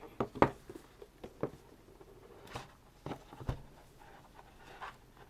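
Hands working at a tight-fitting CD album box: scattered light clicks, taps and scrapes of card and packaging, about eight in all, as the contents are worked out.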